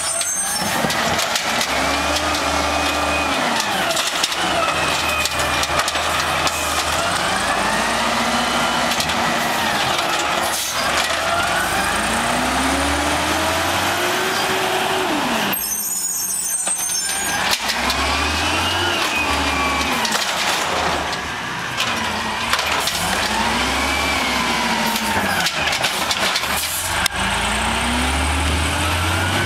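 Peterbilt natural-gas garbage truck with an Amrep automated side-loader arm: the engine and hydraulics rise in pitch and fall back again and again as the arm grabs, lifts and dumps the curbside carts, with a few knocks along the way.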